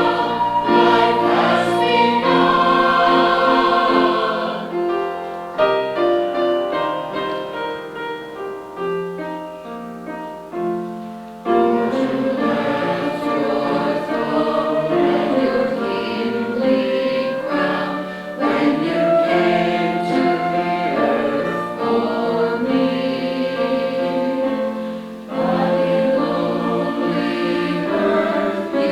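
Choir singing in harmony. A quieter, thinner passage follows from about five seconds in, and the full choir comes back in strongly about twelve seconds in.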